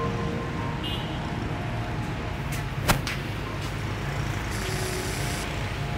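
Steady low rumble of city street traffic, with a single sharp crack about halfway through.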